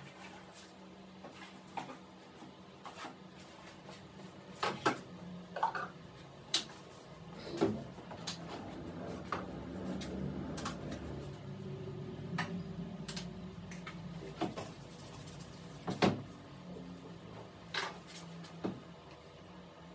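Irregular knocks and clacks of plastic jugs and cups being picked up, set down and handled on a workbench while epoxy resin and hardener are readied, over a low steady hum.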